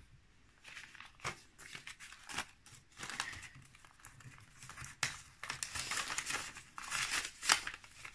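Paper envelopes, banknotes and a binder's plastic sleeves rustling and crinkling as they are handled, in irregular short crackles that grow busier about halfway through.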